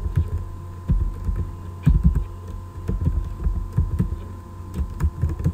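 Computer keyboard keystrokes, irregular taps as a name is typed, over a steady electrical hum.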